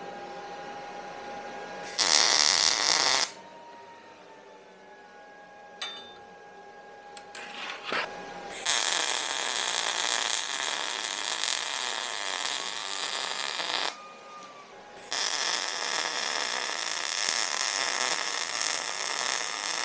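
Arc welding a half-inch bolt onto a clamp. A short tack of about a second, then two longer welds of about five seconds each, each a steady hiss that starts and stops abruptly.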